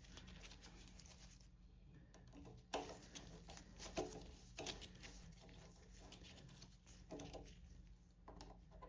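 Faint, scattered clicks and taps of a 5 mm hex key turning a bolt into a motorcycle stabilizer's frame mount, over a low steady hum.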